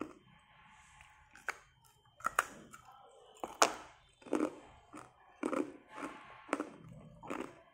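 Hard ice being crunched between the teeth: a few sharp cracks, the loudest about halfway through, then steady chewing crunches about twice a second.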